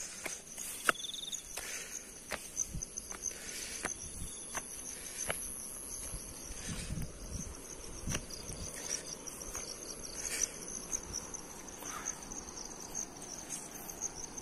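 Insects chirring in a steady, rapidly pulsing high-pitched chorus, with scattered clicks and a few low thumps from footsteps on a dirt path.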